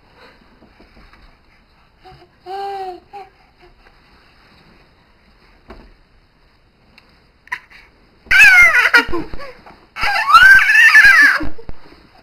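Baby giving a short coo, then two loud, high-pitched shrieks of laughter near the end as he is tickled.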